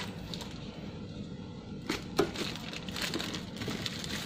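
Plastic wrapping crinkling as a plastic-wrapped wok is handled, with two sharp knocks about two seconds in.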